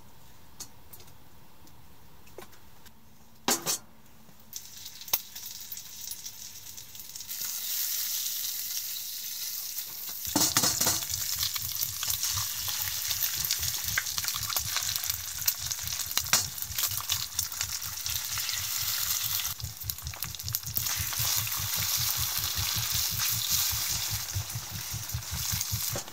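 Bacon and egg frying in a stainless steel pot on a tent wood stove: a sizzle that starts softly about four seconds in and is loud and steady by about seven seconds. From about ten seconds in, a fork stirs and scrapes the eggs in the pot over the sizzle. A single sharp knock comes about three and a half seconds in.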